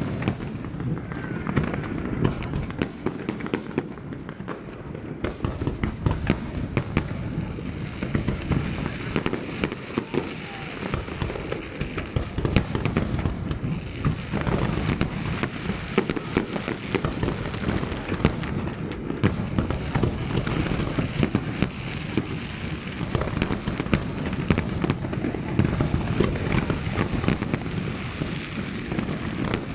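Fireworks display: a continuous barrage of aerial shells bursting, many sharp bangs and pops overlapping with no pause.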